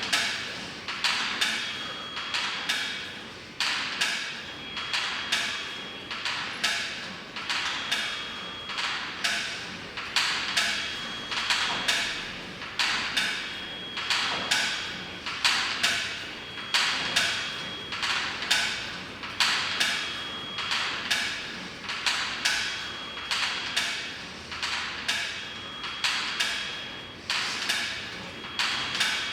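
Steady, rhythmic footfalls of a person walking briskly as exercise, each step a short knock.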